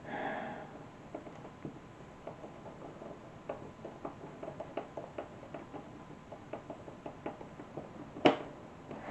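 Small irregular clicks and taps of a screwdriver turning the screws that hold an Atari 410 cassette recorder's circuit board to its mounting posts, with one sharp knock about eight seconds in.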